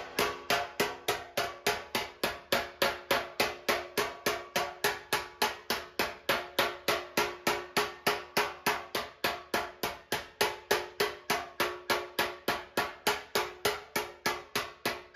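Sharp metallic slaps at a steady rhythm of about three a second, as a slapper (a long-faced spoon) strikes a dented classic Mini steel wing backed by a toe dolly. Each strike rings briefly at the same pitch. The blows are lifting the dented low area back out.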